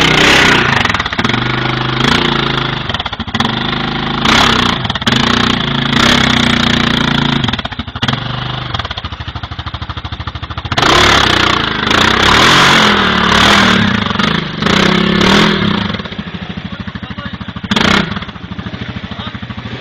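ATV engine revving hard in repeated bursts as the quad fights up a muddy gully, dropping back to a lower, lumpy running between pushes.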